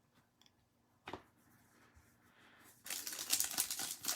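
Foil trading-card pack wrapper crinkling and tearing as it is opened, starting about three seconds in after a single click near one second.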